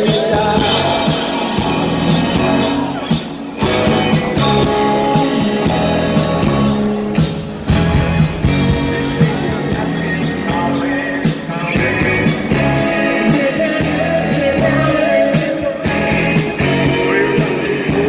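Live rock band playing with electric guitars, bass and drums, recorded from within the audience.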